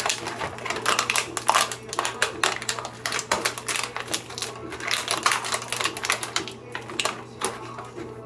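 A new toothbrush's plastic packaging being torn open, crinkling and crackling in dense, irregular clicks.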